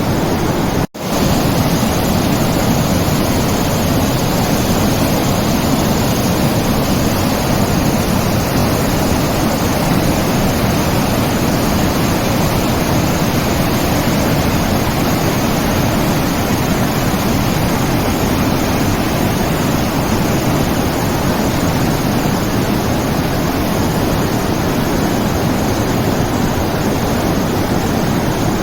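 Steady, loud rushing noise with no pitch, even across low and high tones, cutting out for a split second about a second in.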